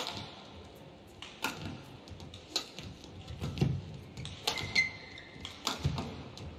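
Badminton rally: rackets striking the shuttlecock about once a second, sharp cracks, with players' shoes thudding and squeaking on the court mat.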